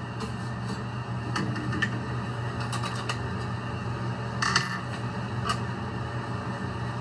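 Scattered light metallic clinks and clicks as the mounting screws are taken out of a refrigerator's rear access cover, with a steady low hum underneath.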